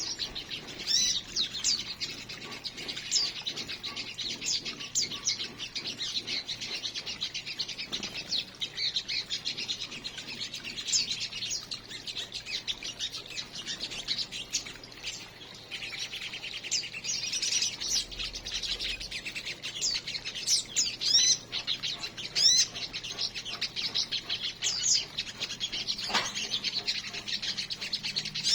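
A group of small aviary birds chirping and twittering constantly, many short high chirps overlapping one another.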